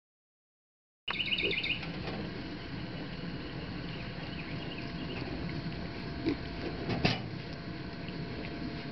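A pen of six-week-old piglets rooting and grunting, with a quick run of high chirps as the sound begins and a single sharp knock about seven seconds in.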